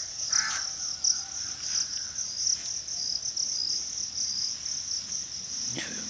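A steady chorus of insects trilling in a high, pulsing band, with a crow cawing once about half a second in.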